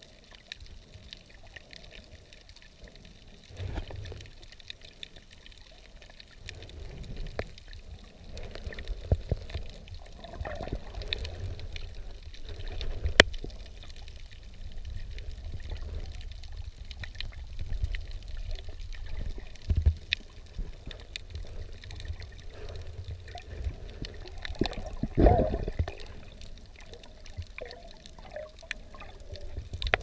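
Water sloshing and gurgling around a camera held in shallow sea water, partly under and at the surface, with a low rumble and scattered sharp clicks. The level swells irregularly, with a louder surge about four seconds in and the strongest one late on.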